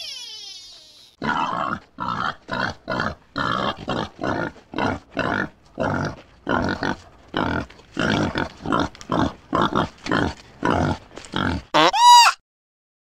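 Pigs grunting in short rough bursts, about two a second. In the first second a falling call fades out, and near the end there is one brief rising-and-falling tone.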